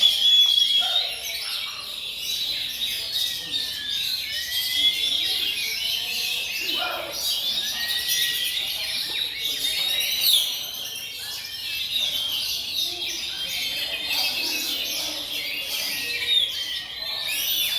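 Several oriental magpie-robins singing together, a dense overlapping stream of clear whistles, chirps and rapid trills with no break.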